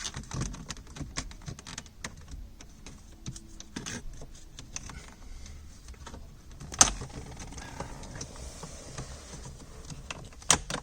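Small flat screwdriver prying at a plastic center-console trim cover: scraping and light clicks throughout, with a sharp snap about seven seconds in and another just before the end as the cover's retaining pins let go.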